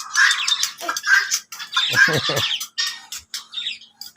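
A flock of aviary birds, small parrots among them, chattering and squawking all at once, with a few short falling calls about two seconds in.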